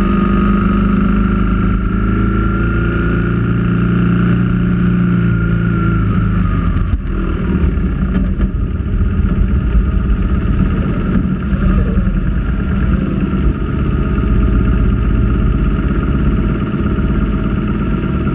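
Motorcycle engine running at a steady cruising speed, then easing off about seven seconds in as the bike slows and stops, after which it runs at idle.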